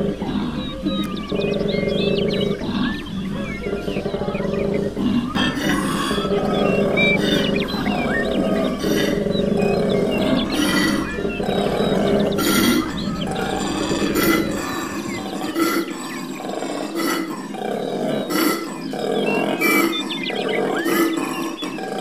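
Koala bellowing: a long run of deep, repeated calls.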